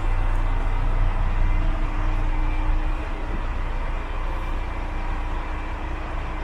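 Diesel engine of a standing KTR700 railcar idling: a steady low rumble, easing slightly about three seconds in.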